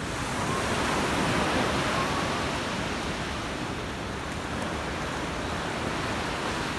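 Sea surf washing on the shore: a steady rush of breaking waves that swells about a second in and then evens out.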